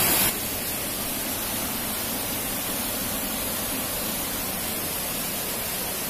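Waterfall rushing as white water sheets down a sloping rock face, a steady even roar of water that drops a step in level a moment in and then holds steady.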